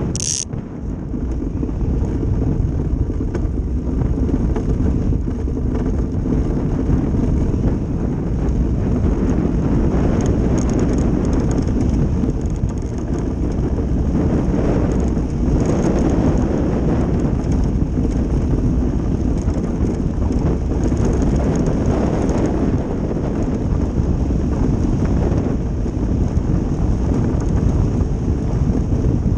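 Ice boat's runners rumbling steadily over lake ice at speed, with wind buffeting the microphone. A short high-pitched squeak sounds right at the start.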